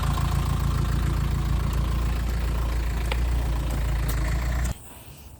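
Renault Kadjar car engine idling steadily after being jump-started; the owner blames a bad battery cell for the no-start. The sound cuts off suddenly near the end.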